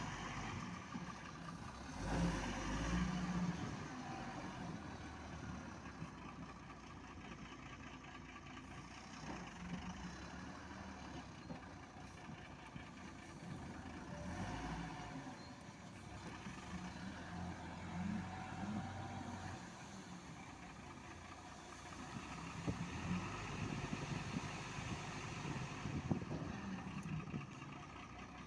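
Diesel engine of heavy earth-moving machinery running under changing load, its pitch rising and falling, with a few sharper knocks in the last few seconds.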